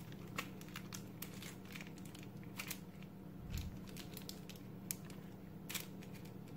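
Scissors cutting along the edge of foil-lined bubble wrap insulation (Reflectix): faint, scattered snips and crinkling of the foil.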